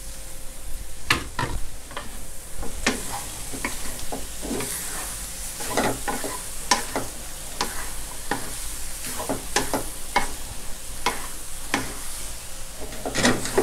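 Wooden spatula scraping and knocking against a stone-coated nonstick wok as fish maw with egg and scallions is stir-fried, with irregular clacks about once or twice a second over a steady sizzle.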